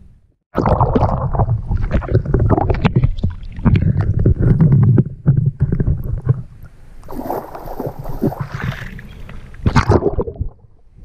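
Water sloshing and splashing around a waterproof action camera as it dips in and out of the surface during a swim, with irregular knocks and gurgling. The sound cuts out for about half a second at the start.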